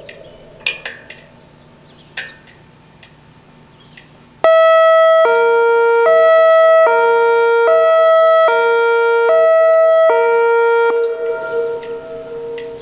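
Whelen WPS 2802 electronic siren sounding a hi-lo signal: two steady tones, high then low, alternating about every 0.8 seconds. It starts abruptly about four seconds in, runs four cycles and cuts off, leaving an echo. Before it, a few sharp short chirps or clicks.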